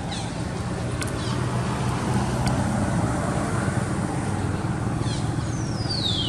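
Short high-pitched squeaks from a baby macaque, falling in pitch, with a longer, louder falling squeal near the end. A steady low engine hum of traffic runs underneath.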